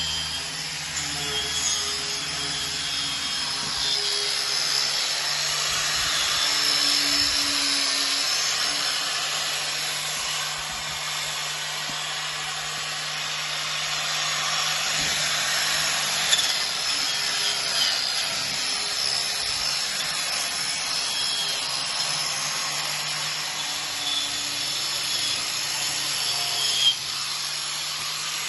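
A handheld power tool running steadily, with a few brief sharp knocks, the loudest near the end.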